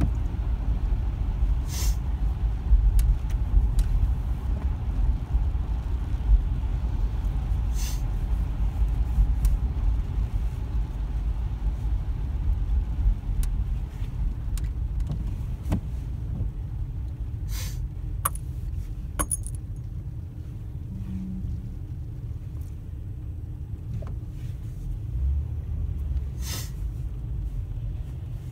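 Car's engine and tyre rumble heard from inside the cabin while driving slowly on a wet road, easing off a little past the middle. A few short, sharp sounds stand out, about five times, spaced several seconds apart.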